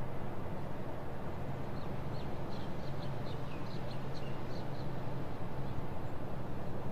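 A bird chirping: a quick run of short, high calls about two seconds in, over a steady low hum.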